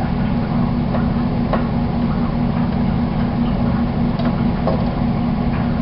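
A steady low machine hum, with a few faint clicks and taps of a knife cutting through a rolled wrap onto a board.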